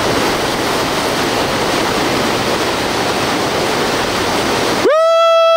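Water rushing and churning over a canal spillway, a loud, steady noise. Near the end the water sound cuts out abruptly and a loud, steady pitched tone starts, sliding up in pitch as it begins.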